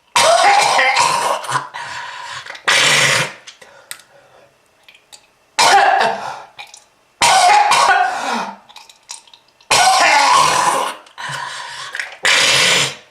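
A person coughing hard in about six fits, each a second or two long with short pauses between, with throat clearing: a smoker's cough.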